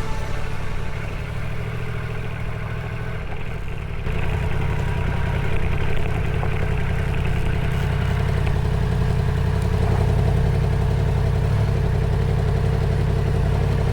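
Yamaha MT-10 motorcycle's crossplane inline-four engine running steadily, a low rumble that gets louder about four seconds in.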